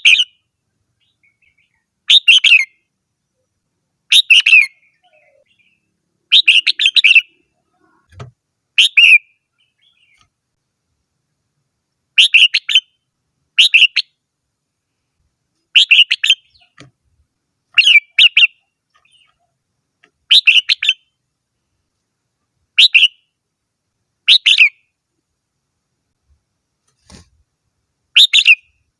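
Red-whiskered bulbul singing: about a dozen short, bright phrases, each about half a second long, coming one every one to three seconds with silence between.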